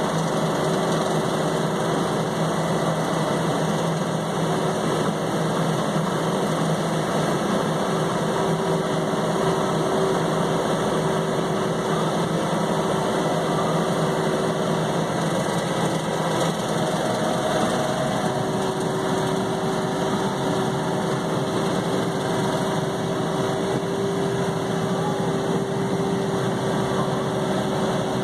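John Deere 3720 compact tractor's three-cylinder diesel engine running steadily under load while it drives a rotary cutter (bush hog) through tall grass, heard from inside the tractor's cab.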